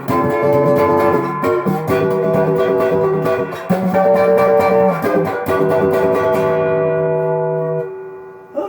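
Gearit Telecaster-style electric guitar on its stock neck pickup, played through an overdriven amp: a run of chords, the last one left ringing and fading away near the end. The tone is nice and dirty.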